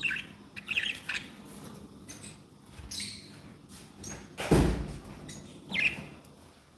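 Pet budgerigars chirping in short, scattered calls, with a louder short thump about four and a half seconds in.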